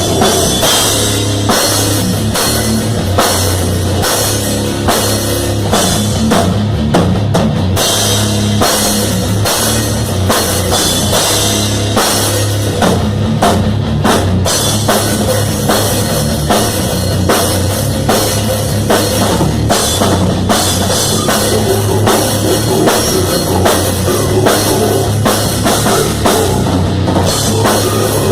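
Rock music with a full drum kit keeping a steady beat, bass drum and cymbals prominent, over a sustained bass line.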